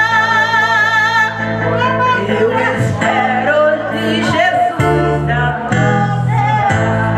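A woman singing a gospel worship song through a microphone over electronic keyboard chords. She holds a long note with vibrato, then about a second in moves into a melody that changes pitch more quickly.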